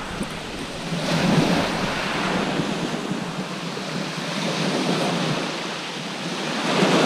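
Sea waves breaking and washing up a shingle beach, the surf swelling and easing in slow surges.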